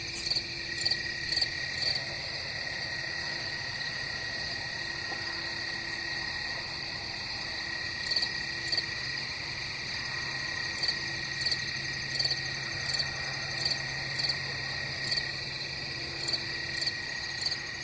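Night chorus of crickets chirping: a steady high trill runs under a louder chirp that repeats about twice a second. The louder chirps drop out for a few seconds early on and then return.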